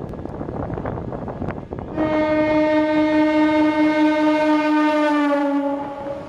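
Horn of an oncoming MEMU electric train: one long, loud note starting about two seconds in and lasting about four seconds, dropping slightly in pitch near the end as the train draws level. Under it, the rattle and rumble of the moving train the sound is heard from.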